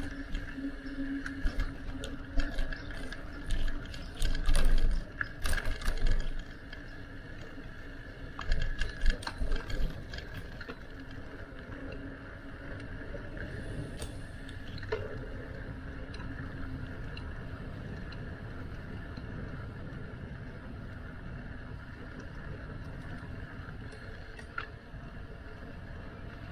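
Ride noise from a bicycle on city streets: a steady rolling hum with clusters of rattling knocks and low jolts, as over bumps, between about two and six seconds in and again around nine seconds.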